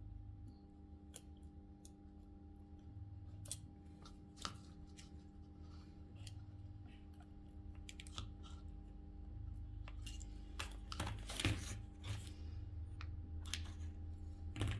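Scattered small clicks and scrapes from hand tools and a power adapter's circuit board being handled on a workbench, busiest a little past the middle, over a steady low electrical hum.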